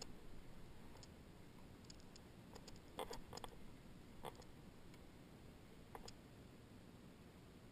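Faint, irregular clicks and taps, about eight of them spread over a few seconds, from a fishing rod and reel being handled aboard a plastic kayak, over near silence.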